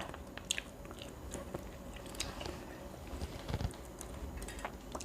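A person chewing and biting grilled street food close to the microphone, with small wet clicks and crunches scattered through.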